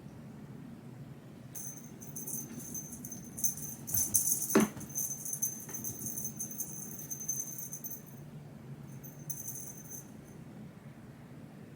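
Light metallic jingling, like a small bell or keys being shaken, in uneven bursts over several seconds. About four and a half seconds in, a quick sound sweeps sharply down in pitch.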